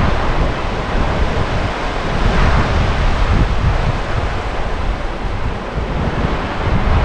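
Small surf waves breaking and washing up a sandy beach, swelling about two and a half seconds in, with strong wind buffeting on the microphone.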